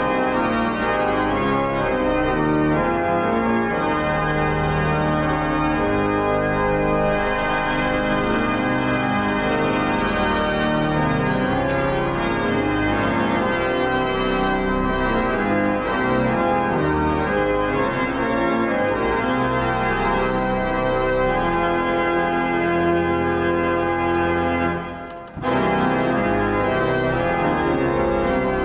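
Church organ playing held chords that change every second or two, breaking off briefly near the end before carrying on.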